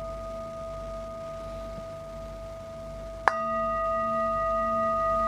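A metal singing bowl rings with a steady tone and a slowly wobbling low hum. About three seconds in it is struck again with a mallet: a sharp strike, after which the ringing is louder and brighter.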